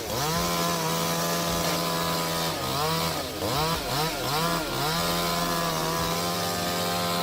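Chainsaw running at high revs, its engine note dropping and recovering several times in the middle of the stretch.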